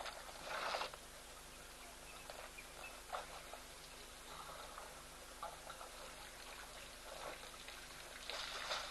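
African elephants at a muddy waterhole: faint, irregular splashes and squelches of water and mud as they drink and shift their feet, over a steady hiss, a little louder near the end.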